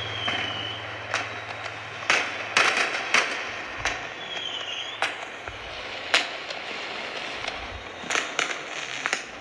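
Recorded fireworks played from a tablet into the lectern microphone: repeated sharp bangs and crackles over a steady hiss, with two short whistles, one right at the start and one about four seconds in.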